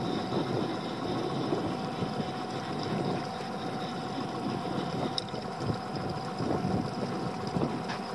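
Small boat's engine idling steadily, with water lapping against the hull and wind on the microphone.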